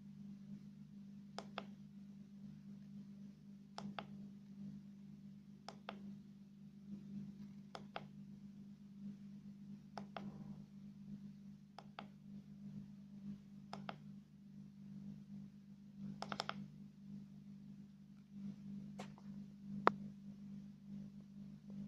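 Small push button on a KCX-017 USB voltage and current tester clicked about every two seconds, cycling its display, with the loudest click near the end. A steady low hum runs underneath.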